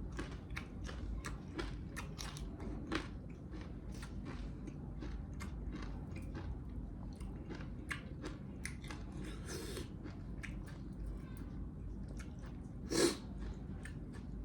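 Close-up chewing and biting of spicy mutton leg pieces: a run of wet mouth clicks and smacks, with one louder crunching bite near the end.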